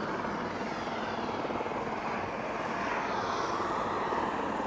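Aircraft engine noise: a steady rushing drone overhead.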